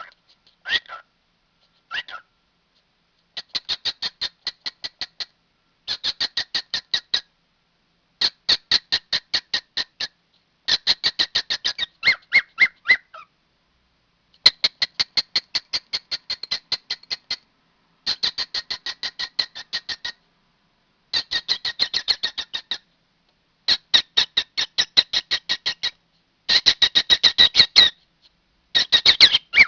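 Cockatiel calling in repeated runs of rapid chirps, about seven a second, each run lasting a second or two with short pauses between.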